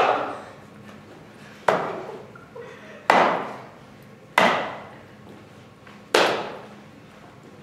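Stage-combat prop swords striking each other: four sharp clacks a second or more apart, each with a short ringing tail.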